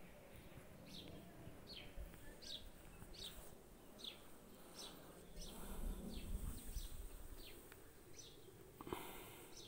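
A small bird calling over and over, a short high chirp that drops in pitch, about one and a half times a second, faint over a low outdoor rumble. A brief knock comes near the end.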